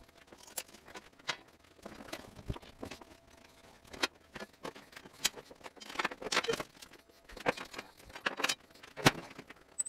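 Irregular clicks, knocks and scuffing from hands and boots working on a steel torch-cutting table and duplicator as they are set up by hand, with a sharp knock near the end.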